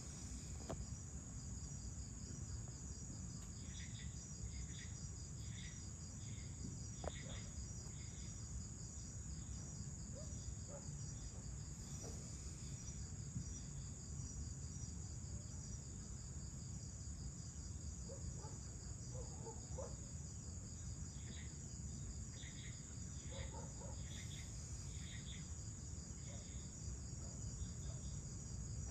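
Evening chorus of crickets and other insects: a steady, high-pitched pulsing trill over a low steady rumble. Short chirps, repeated about twice a second, come in two spells, a few seconds in and again near the end.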